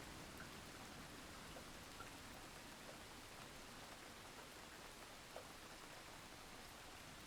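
Faint, steady rain with scattered drop ticks, the low tail of a thunder rumble dying away at the very start.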